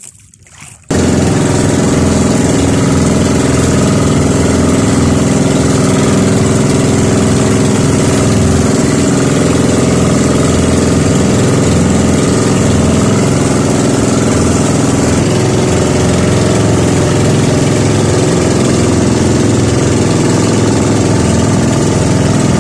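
Outrigger bangka's inboard engine running steadily under way, loud and close, with the hiss of wind and water over it. It starts abruptly about a second in.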